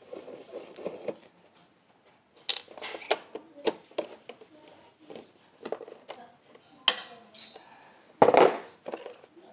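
Metal tools and parts being handled in a workshop: a string of short clinks, clicks and knocks, with one louder clunk about eight seconds in.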